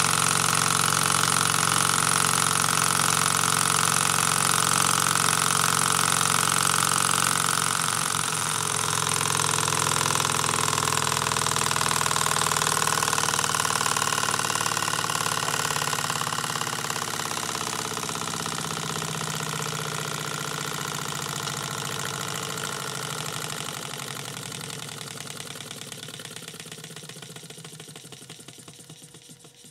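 A small Peanut Rider hot-air engine running with a steady mechanical noise. Over the second half it gradually fades as it slows, dying away near the end as the engine runs down to a stop.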